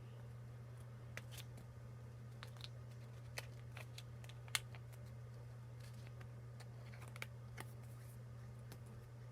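Pokémon cards being slid into soft plastic card sleeves: scattered small crinkles and clicks of plastic and card, the sharpest about halfway through, over a steady low hum.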